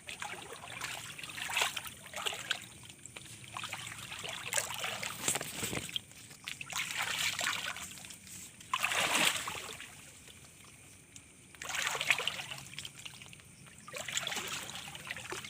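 Ditch water splashing and trickling in irregular bursts of about a second each, as the water is stirred and the traps are handled.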